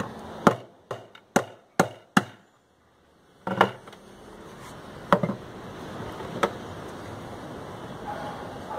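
Steel claw hammer driving a nail through a motorcycle tyre into a wooden board: five sharp blows about half a second apart, then a break. Later come a few lone knocks.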